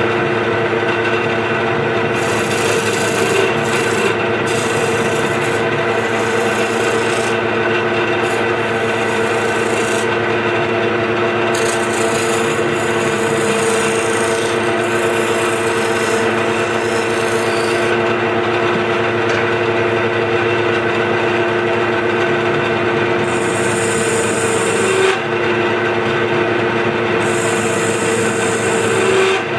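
Wood lathe running with a steady hum while a chisel cuts into the spinning wooden blank, rounding over edges and cutting beads. The cutting comes in stretches of high scraping hiss that start and stop, with shorter passes near the end.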